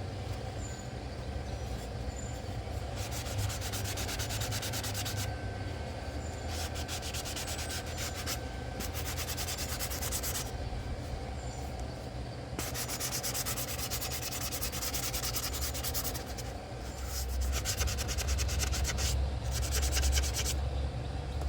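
Sanding block rubbed back and forth by hand over an old picture frame, in bouts of quick strokes with short pauses between, lightly scuffing the old finish so paint will take.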